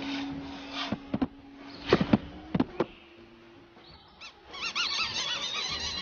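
Cartoon bird sound effects: a handful of quick, sharp taps and squeaks, then, from about two-thirds of the way through, a flock of small cartoon birds chirping together in quick repeated chirps.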